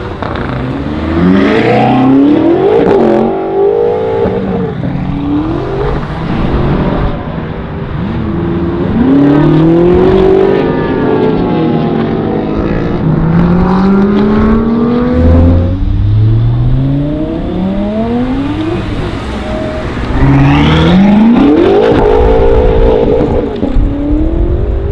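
Twin-turbo V8 of a 650 hp Hamann-tuned BMW M6 with an M Performance exhaust, accelerating hard several times: the engine pitch climbs, drops back at each upshift, then climbs again.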